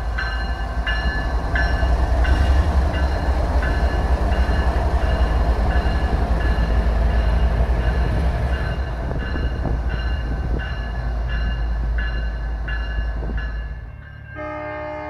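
A Norfolk Southern GE ES44AC diesel locomotive running past close by, its engine a heavy steady rumble, loudest as it goes by, with its bell ringing about once every 0.7 s. Near the end the train sound drops away and music begins.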